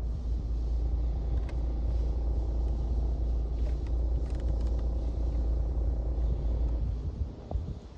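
Suzuki car's engine compartment with the engine running and the air conditioning on: a steady deep rumble, the noise that comes with the AC switched on. It drops away about seven seconds in.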